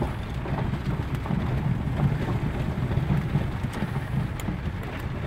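Steady engine and road noise of a Toyota 4x4 heard from inside the cabin, driving slowly on a dirt road, with rain falling on the windshield.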